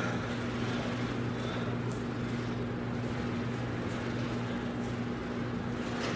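Steady low electrical hum under a faint even hiss.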